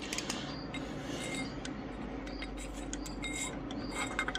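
Light metallic clinks and rubbing as hands and tools work at the fuel filter housing of a Lister ST2 diesel to take it off, with a cluster of sharper clicks near the end.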